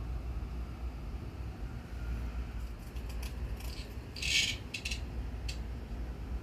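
Scattered light clicks and rattles, with one short, louder scratchy rasp about four seconds in, over a steady low hum.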